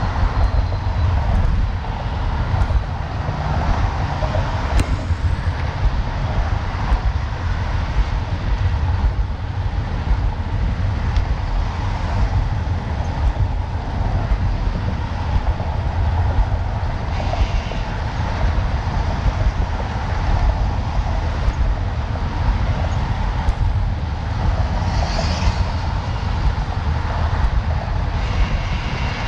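Wind buffeting the microphone of a camera riding on a moving road bicycle: a steady, loud low rumble with a few faint ticks.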